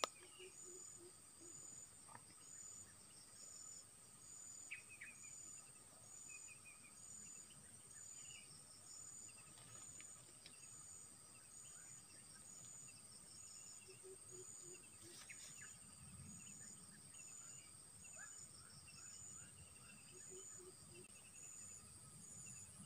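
Faint ambience of insects trilling steadily, one of them with a high chirp repeating about once a second, and a few short bird chirps scattered throughout.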